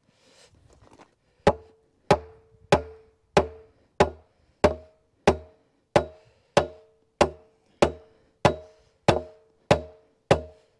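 A hammer striking over and over in a steady rhythm, about three blows every two seconds, each a sharp knock with a short ring. The blows begin about one and a half seconds in.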